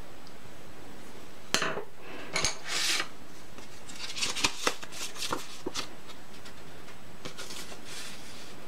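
Light handling sounds on a wooden desk. A sharp click comes about a second and a half in, then paper rustles with scattered small clicks as a folded paper swatch strip is opened out.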